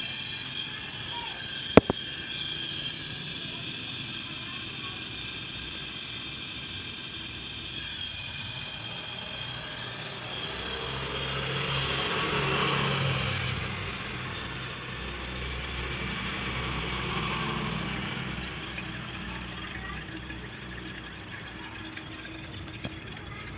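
Refrigerant gas hissing steadily out of a car AC system through the manifold gauge hoses as the system is discharged, with thin high tones over the hiss. It swells for a few seconds around the middle, and there is one sharp click about two seconds in.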